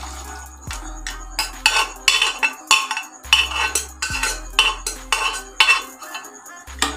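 A metal spoon scraping and knocking against the inside of a cooking pot, about two knocks a second, as boiled chickpeas and potatoes are scooped out of it into another pot. A low hum cuts in and out underneath.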